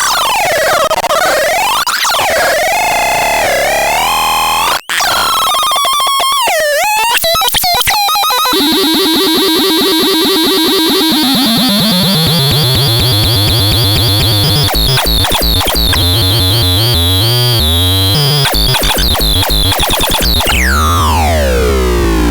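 Synthesizer making harsh, noisy electronic tones: pitches swoop up and down, the sound cuts out for an instant about five seconds in, then a steady high whine sits over a low tone that steps downward, and a long falling sweep comes near the end.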